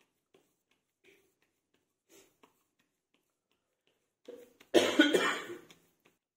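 A person coughing: a sudden loud fit of about a second near the end, after a few faint clicks.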